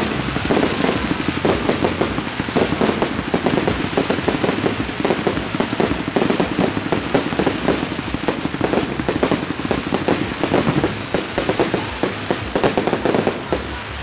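Fireworks display: a dense, continuous run of rapid pops and crackles as many crackling stars burst overhead and more rockets go up, easing off near the end.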